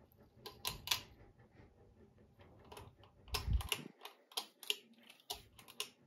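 Ceiling fan light-kit pull chain being pulled: about ten sharp clicks and taps in quick clusters from the pull-chain switch and its metal chain, as the lights are switched off.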